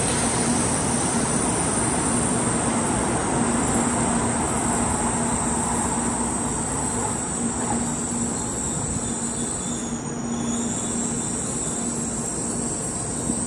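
N700-series Shinkansen train pulling into a station and slowing to a stop: steady rolling noise with a constant low hum and a faint high whine, growing gradually quieter as it slows.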